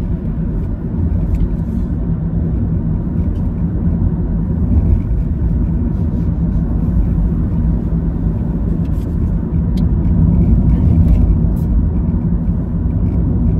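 A steady low rumble, with a few faint clicks near the end.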